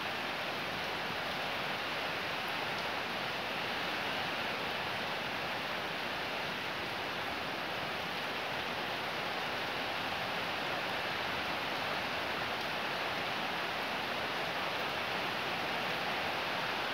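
Heavy rain falling steadily: a continuous, even hiss of rain with no letup.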